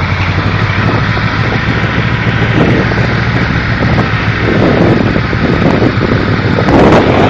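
KamAZ truck's diesel engine running steadily, with wind buffeting the microphone.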